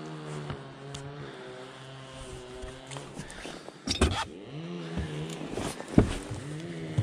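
Electric trolling motor of a bass boat whirring in short bursts: it spins up, holds and winds down three times. Two sharp knocks, about 4 s and 6 s in, are the loudest sounds.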